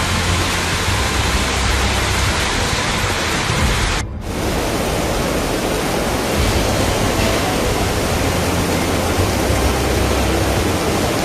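Torrential rain pouring down, a loud, dense, steady hiss, with a brief break about four seconds in where it cuts to another shot of the same downpour.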